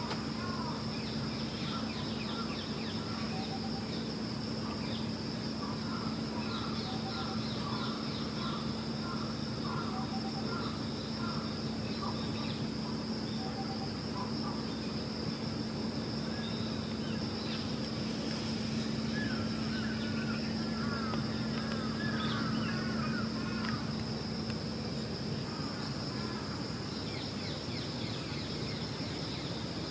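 Outdoor ambience: small birds chirping in short repeated series, with a run of quick gliding chirps in the middle, over a steady low hum and a constant high-pitched tone.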